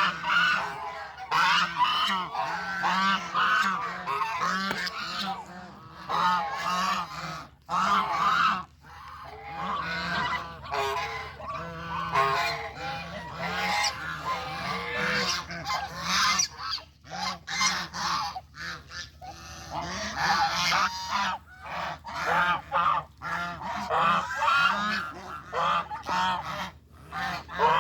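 Flock of domestic geese honking, many calls overlapping in a near-continuous chorus with a couple of brief lulls.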